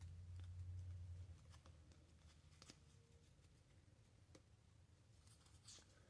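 Near silence with faint handling of trading cards: a low rumble for about the first second, then a few scattered light clicks and rustles.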